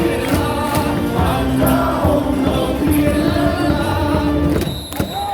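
Baseball stadium cheer music over the loudspeakers with many voices singing along. It breaks off shortly before the end.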